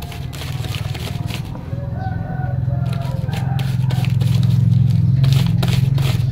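Dried banana leaf rubbed in strokes against a piece of galih asem (tamarind heartwood) to polish it, a run of scrapes and small clicks, over a steady low rumble that grows louder about four seconds in.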